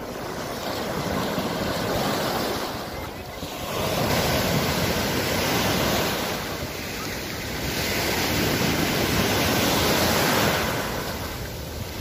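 Small sea waves breaking and washing up the sand at the shoreline, a rushing surf that swells and eases every few seconds.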